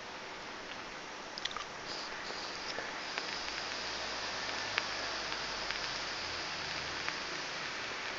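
Long draw on a sub-ohm vape fired from a Congestus V2 mechanical mod: a steady hiss of air and the coil sizzling, with a few sharp crackles, from about a second and a half in until the end.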